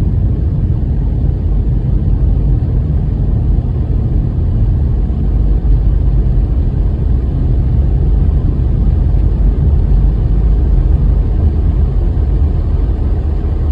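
Car driving slowly, a steady low rumble of road and engine noise heard from inside the cabin.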